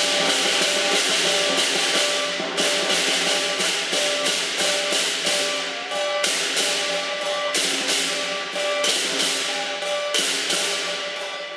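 Lion dance percussion playing: cymbals crash about three times a second over ringing drum and gong tones, with a short break about two and a half seconds in, and the playing gets quieter near the end.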